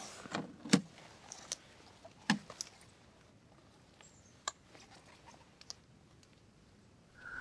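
Several scattered sharp clicks and knocks over a quiet background. The loudest comes about a second in, and the others are spaced irregularly.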